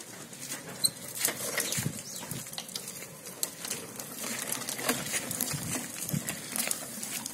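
Child's tricycle rolling over rough concrete and grit: a run of irregular clicks, knocks and rattles from the small wheels and frame.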